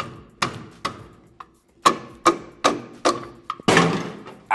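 About nine sharp knocks, spaced unevenly and often in pairs, each with a brief ring. A hand is banging on the plastic end block of a large printer's extruded metal carriage rail, knocking the part loose.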